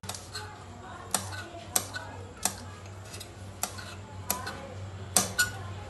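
Kitchen knife chopping green chillies on a stone slab: sharp, irregular knocks of the blade striking the stone, about seven of them, two in quick succession near the end, over a steady low hum.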